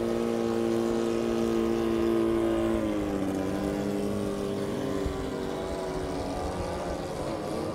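18 HP outboard motor of a racing tunnel boat running at speed: a steady engine drone that drops slightly in pitch about three seconds in, then wavers up and down.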